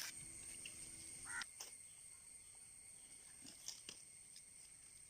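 Near silence: faint room tone with a steady high whine, a faint low hum in the first second or so, and a few faint ticks.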